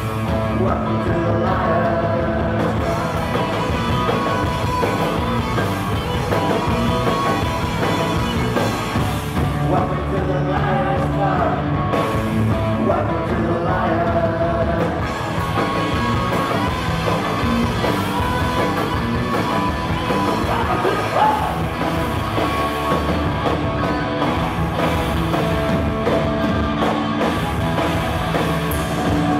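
Punk rock band playing live, heard from the audience: electric guitars, bass and drums at a steady driving pace, with singing at times.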